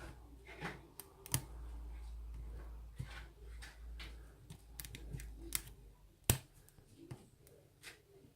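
Lock picks and a tension wrench working an Abus 54T1/50 padlock: irregular small metallic clicks and scrapes from the keyway, with one sharper click about six seconds in and a low handling rumble for a few seconds.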